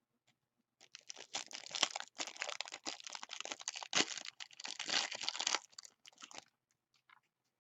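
Cellophane wrapping on trading card packs being torn open and crumpled: a dense crinkling and crackling that starts about a second in and stops near the end.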